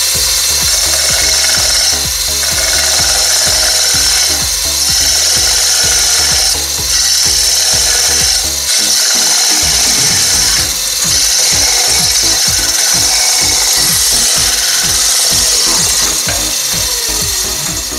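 A homemade pruning saw's small spinning toothed disc cutting into a clamped piece of pine, drawn along the wood from front to back. It makes a steady, loud, high-pitched cutting noise that dips briefly every few seconds.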